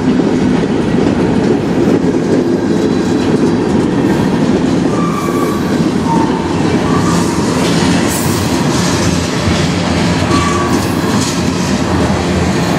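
Manifest freight train of covered hoppers and tank cars rolling past at close range: a steady, loud rumble of steel wheels on rail with clicks and clacks over rail joints. There are brief, faint wheel squeals a few times in the middle.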